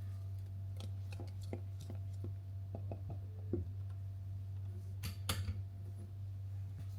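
Scattered light clicks and taps, with two sharper ones about five seconds in, over a steady low hum.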